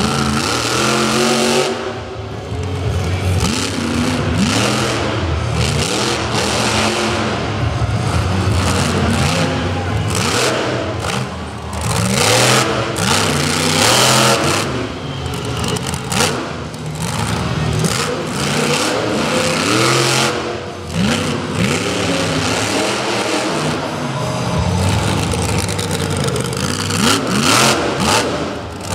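Monster truck engine revving hard and repeatedly, its pitch climbing and falling again and again as the truck drives and wheelies on dirt.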